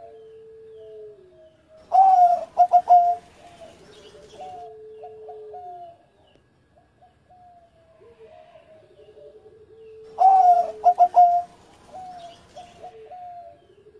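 Zebra dove (perkutut) singing its cooing song: a loud phrase of quick coos about two seconds in, repeated about eight seconds later, with softer, lower trilling coos in between.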